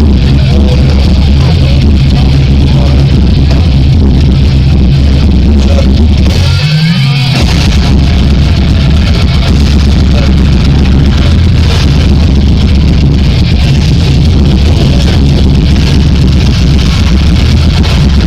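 Live heavy metal band playing loud, with distorted electric guitars, bass and drums, recorded so close to full volume that it is overloaded and muddy. The low end drops out for under a second about seven seconds in, then the full band comes back.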